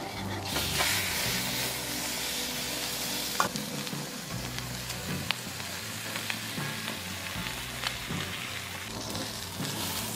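Rack of lamb ribs sizzling as it sears on a hot barbecue plate. The sizzle is loudest in the first three or four seconds, then settles to a steadier, lower hiss, with a few light clicks.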